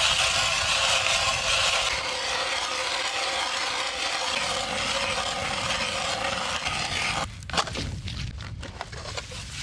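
Hand-cranked ice auger boring through lake ice: a steady grinding scrape of the blades shaving ice. It stops abruptly about seven seconds in, leaving a few light knocks.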